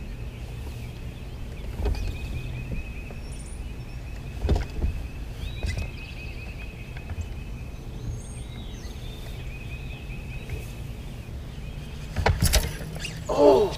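Bow-mounted electric trolling motor running steadily, a low hum with a thin high whine over it. A few short knocks come through, the loudest near the end.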